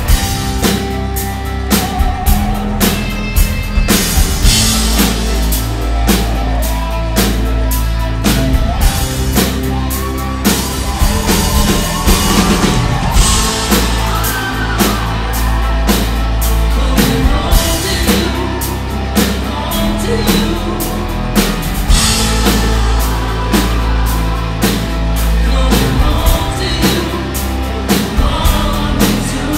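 Live rock band playing loudly: a male singer singing over a steady drum-kit beat, electric guitar and bass, heard from in the crowd.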